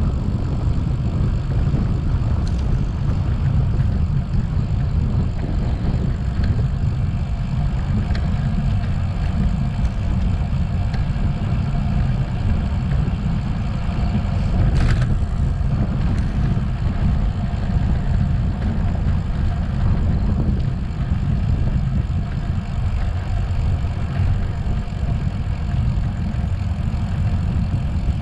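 Steady low wind rumble buffeting the microphone of a moving rider, loud enough to pass for a vehicle engine, with one short sharp click about halfway through.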